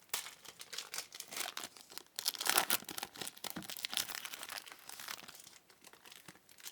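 Trading-card pack wrapper crinkling and tearing as the pack is opened and handled, in irregular crackly bursts that are loudest about two to three seconds in.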